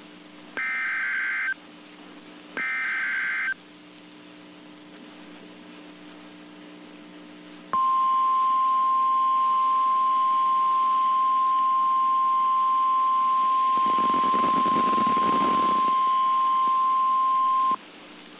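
Emergency Alert System signal from NOAA Weather Radio announcing a tornado warning. First come the last two of the three SAME header data bursts, each about a second long with a second's gap. Then a few seconds of faint radio hiss and hum, then the steady single-pitch 1050 Hz weather-radio warning alarm tone for about ten seconds, with a rush of static under it near the end.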